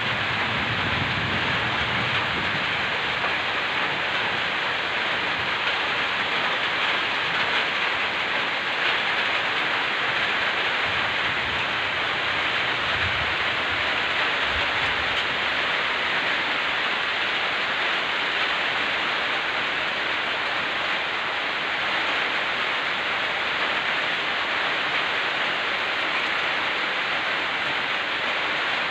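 Heavy rain falling steadily, a dense even hiss. A few low rumbles of thunder come at the start and again around the middle.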